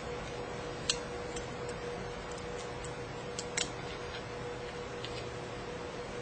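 A few small, sharp ticks and clicks from hands and a knife blade working at a laptop's display cable connector and its tape: the clearest about a second in and two close together just past the middle. A faint steady hum and hiss lie underneath.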